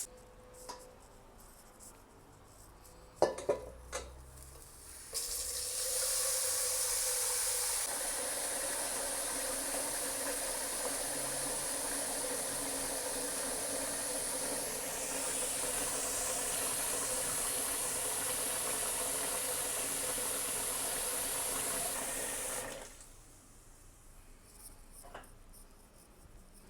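A short clatter, then water running steadily from a kitchen tap for about seventeen seconds before it is shut off.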